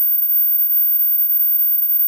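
A single steady, very high, thin electronic tone near the top of human hearing, with nothing else beneath it: a synthesized high-frequency dog whistle tone meant to deter barking dogs.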